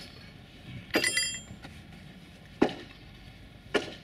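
Three sharp metallic clanks from working on a Stihl petrol rail cut-off saw that will not start. The first clank comes with a brief metallic rattle and ringing. The saw's engine does not catch or run.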